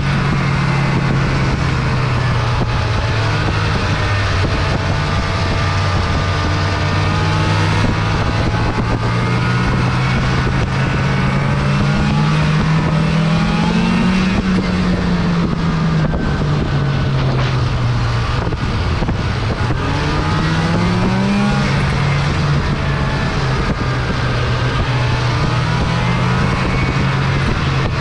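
Snowmobile engine running steadily under way. Its pitch climbs twice, about halfway through and again about three-quarters of the way through, then eases back as the throttle is let off.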